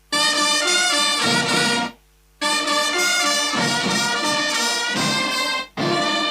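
Brass band music playing in phrases, each cut off sharply. There is a brief silence about two seconds in and another shortly before the end.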